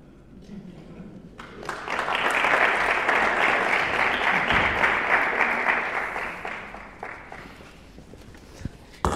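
Audience applauding, swelling up about a second and a half in and dying away after about six seconds, followed by a single sharp knock near the end.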